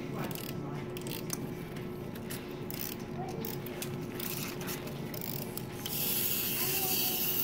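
Rapid ratcheting clicks from the clockwork of small plastic wind-up lizard toys being wound and set walking. A steady hiss comes in near the end.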